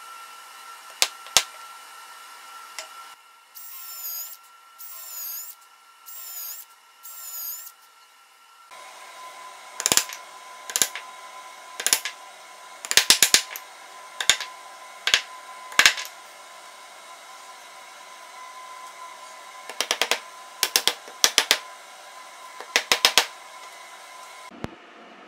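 Hammer tapping glued wooden dowels into an oak workbench part: sharp knocks in quick groups. Before the knocking come four short squeaky rasps.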